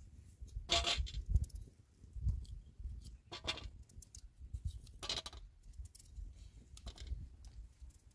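Sharp clinks and scrapes of hard objects being handled, four or five spaced a second or two apart, over low uneven knocking.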